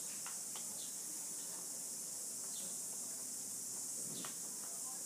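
Steady high-pitched hiss of background noise, with a few faint short chirps and clicks.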